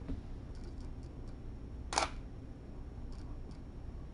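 One sharp camera shutter click about two seconds in, with a few faint high ticks around it, over a low steady room hum.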